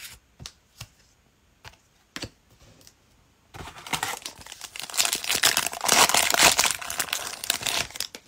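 A few light clicks and taps as cards are handled, then, about three and a half seconds in, a Panini Chronicles Draft Picks foil card pack crinkling as it is torn open, lasting about four seconds.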